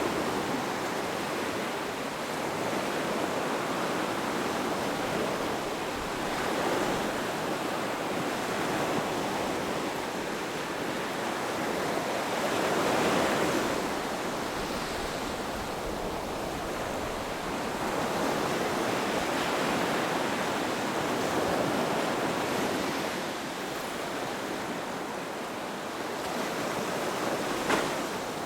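Ocean surf washing onto a beach: a continuous rushing hiss that swells and recedes in slow surges, loudest about halfway through, with one brief sharp sound near the end.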